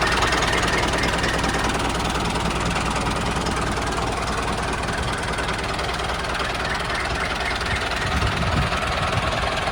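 A small motor-driven machine running steadily with a dense mechanical noise and no pauses; its low hum weakens about halfway through.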